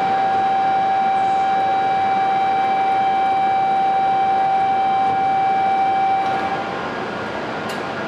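Departure warning tone at a Shinkansen platform: one steady electronic tone held for about six and a half seconds, then cut off. It signals that the doors are about to close and the train is about to leave.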